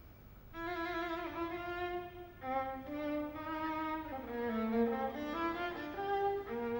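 A string trio of two violins and a cello starts playing about half a second in, with slow bowed notes, each held for about a second.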